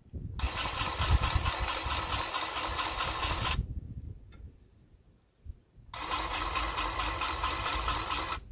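A powered grease gun's motor running in two trigger bursts of about three seconds each, pumping grease into the tractor's grease fittings. Each burst is a dense, even buzz that starts and stops abruptly.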